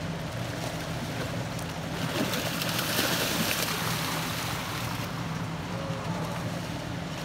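Steady rush of turbulent water below the dam outflow. From about two seconds in, a louder burst of splashing lasts a few seconds as a large fish thrashes at the surface in the shallows.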